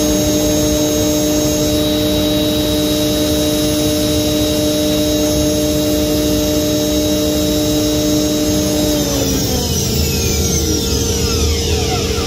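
OMNITECH Mate CNC router spindle running at speed with a steady whine, then spinning down from about nine seconds in, its pitch falling away over a few seconds. A steady hum continues underneath.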